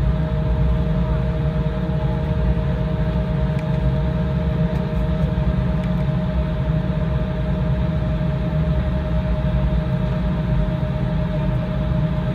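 Cabin noise inside an Embraer E175 jet airliner on the ground: a steady low rumble from its turbofan engines with a steady whine, holding one power setting throughout, with no takeoff spool-up. A second, lower whine fades out about three and a half seconds in.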